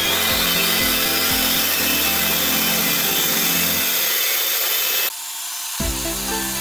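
A power tool working wood: loud steady noise that cuts off suddenly about five seconds in, over background music.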